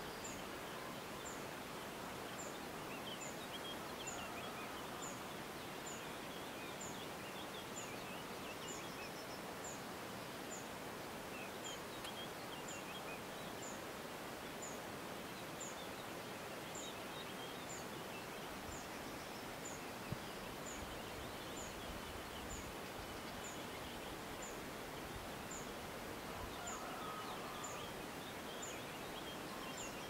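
Countryside ambience: a steady hiss of background noise, with a high, thin note repeated about every two-thirds of a second and a few scattered bird chirps. One faint click about twenty seconds in.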